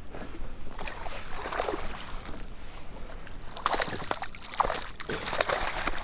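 Water sloshing and splashing against a kayak in irregular bursts, busiest in the second half.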